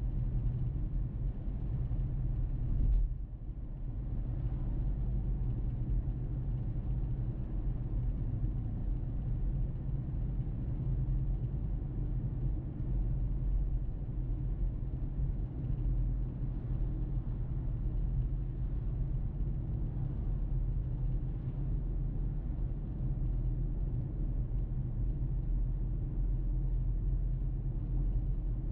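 Car driving on a road: a steady low rumble of tyres and engine, with a short thump about three seconds in.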